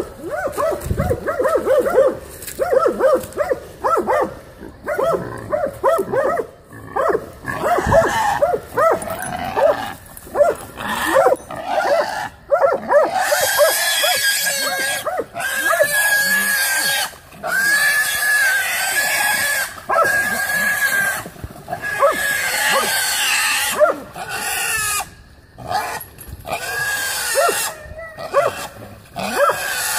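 Hog dogs barking and yelping rapidly at a young hog, which squeals in long, high, drawn-out squeals over and over through the second half.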